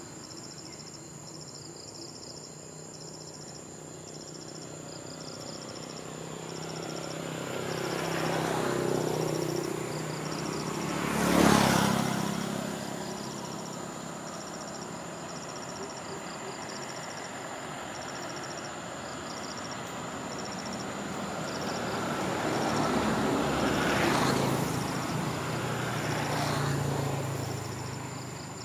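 Road vehicles passing by, each swelling and fading: one about a quarter of the way in, a louder one passing close just after, and another near the end. Insects chirp in short regular pulses over a steady high whine.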